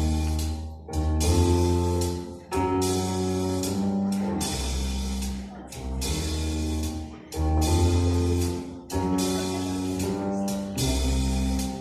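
Instrumental music with guitar, bass notes and drums, with a steady beat.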